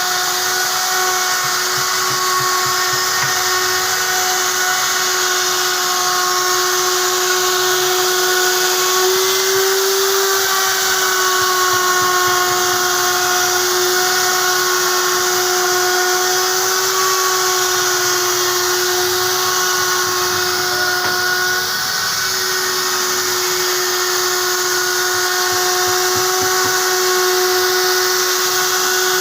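Wood router spindle running steadily at high speed while cutting wood, a constant high-pitched whine over a hiss. Its pitch wavers slightly a couple of times.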